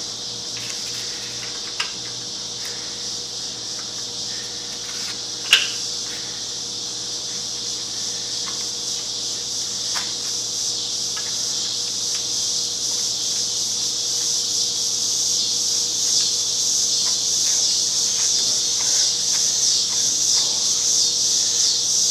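Steady high-pitched insect chorus that slowly grows louder, with a few sharp clicks and taps from metal parts being handled, the loudest about five and a half seconds in.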